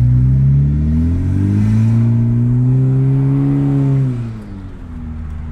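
2018 Honda Civic Hatchback Sport's 1.5-litre turbocharged four-cylinder engine accelerating hard: the revs climb, drop back about a second and a half in as it shifts, climb again, then fall away about four seconds in as the throttle is let off and the engine settles to a steady lower hum.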